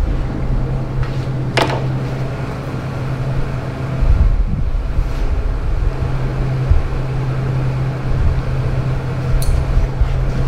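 Steady low hum of running shop machinery, with a sharp click about one and a half seconds in.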